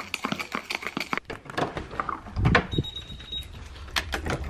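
Spoon clinking and scraping in a drinking glass as a drink is stirred. After that comes a low thud, then a short high-pitched beep, then the click of a lit wall button being pressed.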